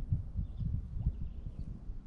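Irregular low thuds and rumble, with faint bird chirps in the background.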